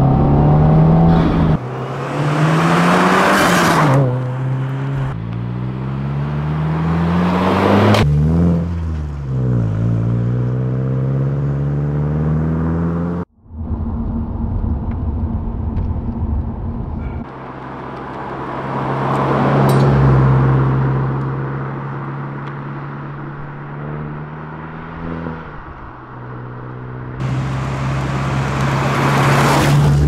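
Subaru WRX (VB) turbocharged 2.4-litre flat-four running through a Tomei full titanium exhaust. It accelerates hard through the gears, its pitch climbing and then dropping back at each shift. After a sudden cut it runs at a steadier note that swells loud and fades away twice.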